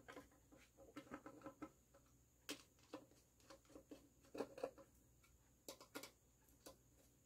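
Faint ticking and scraping of a hand screwdriver turning screws through a wooden ceiling-fan blade into its metal blade arm, in short spells of clicks a second or so apart.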